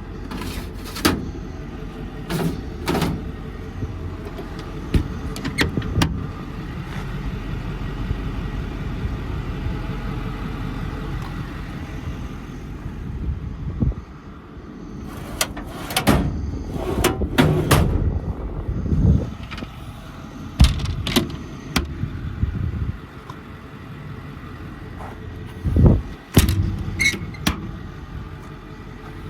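Metal doors and latches clacking and thudding open and shut again and again, over a steady low rumble.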